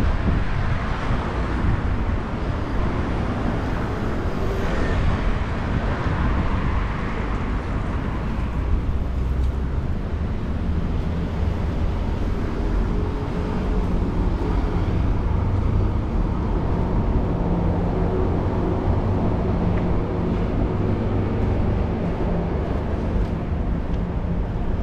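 Steady road traffic noise: a continuous low rumble of vehicle engines and tyres, with a faint engine hum that comes in about halfway through.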